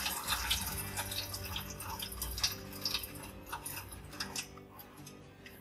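Beef pulao stock boiling hard in a wok: a steady run of bubbling and popping, growing fainter toward the end.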